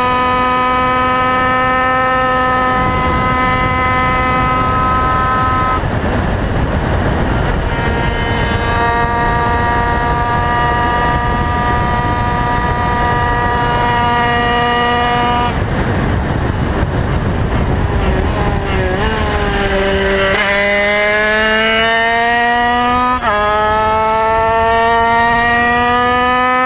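Onboard sound of a race motorcycle engine running hard on track, with wind rushing over the microphone. The engine note holds high, breaks off about six seconds in and again around fifteen seconds, and falls as the bike slows near nineteen seconds. It then climbs again, with a quick upshift about twenty-three seconds in.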